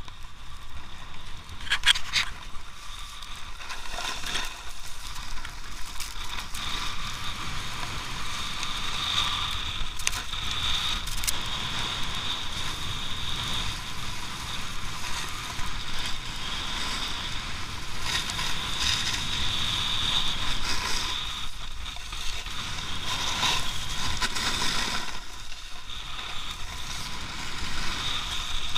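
Skis sliding and scraping over packed snow during a downhill run: a steady hiss and scrape, with a few sharp clicks about two seconds in and again about ten seconds in.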